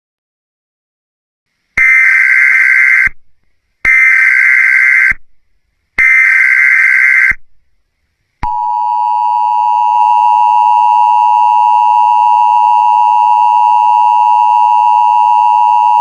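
Emergency Alert System tones: the SAME header's data bursts, sent three times, each about a second long with a second's gap, starting about two seconds in; then, about eight seconds in, the steady two-tone EAS attention signal begins and holds.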